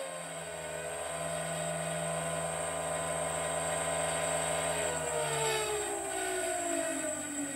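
Electric spindle motor of a milling machine running with a steady hum and whine, then switched off about five seconds in, its pitch falling as it spins down. It runs slow and without power, making weird noises, a fault later traced to a wrongly reconnected wiring.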